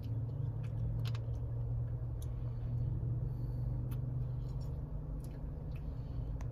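Steady low hum inside a stationary car's cabin, with a few small, sharp mouth clicks and smacks as a child licks and eats a popsicle.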